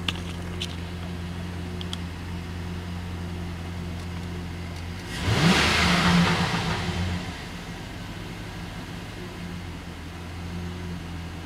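2007 Chevrolet Silverado's 5.3-litre L59 Vortec V8 idling steadily, heard from inside the cab. About five seconds in it is revved once, the pitch rising quickly and the sound getting louder, then it settles back to idle within about two seconds.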